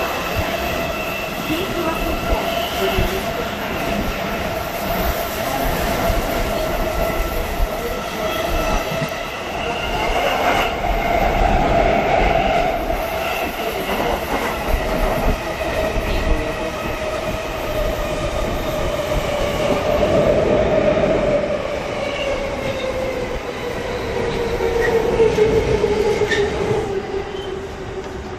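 Electric train running, heard from inside the carriage: a steady rumble of the wheels on the track under the whine of the traction motors. The whine falls in pitch over the last few seconds.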